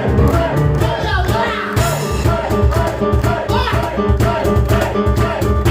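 A piano and cajón duo playing a fast, driving instrumental live, the cajón hitting a steady beat under sustained piano notes.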